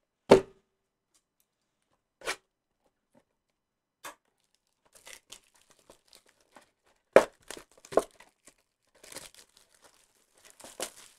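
Clear plastic shrink wrap being torn and crinkled off a cardboard trading-card blaster box: scattered crackling, with two sharper rips past the middle. A single sharp knock comes near the start.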